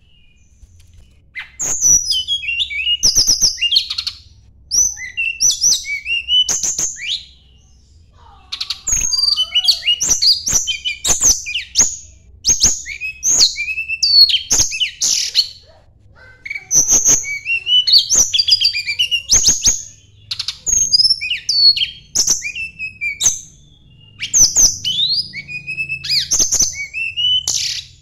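A tledekan gunung songbird singing in rapid phrases of sharp chirps and sliding whistles, each phrase a few seconds long with short pauses between.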